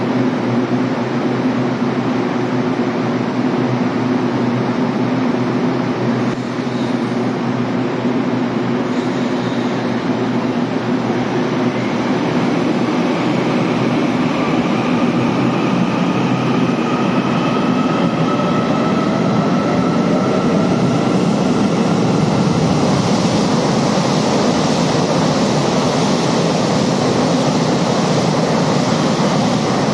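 Electric trains in an underground station. A steady electric hum comes first, then a motor whine that rises slowly in pitch. From about 22 seconds in, the TRA 3000-series intercity EMU runs through the station at speed with a loud rushing noise of wheels and air.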